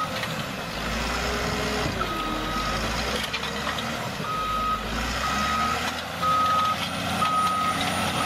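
Reversing alarm on a piece of heavy machinery beeping about once a second, a steady high tone, over the running of a diesel engine.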